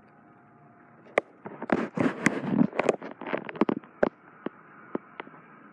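Handling noise from a phone being moved from the window to face the person holding it: a burst of sharp clicks, knocks and rubbing from about a second in to about four seconds in, over a faint steady hiss.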